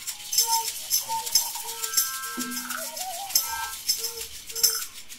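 Free, rhythm-less improvised group sound textures that start suddenly: a rattle shaken in many short strokes, mixed with brief held tones at several pitches and a wobbling, voice-like line.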